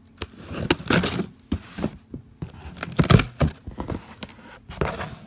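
Cardboard shipping box being torn open by hand: the packing tape and paper shipping label rip in a string of short tears, and the flaps scrape and rustle, with the loudest rip about three seconds in.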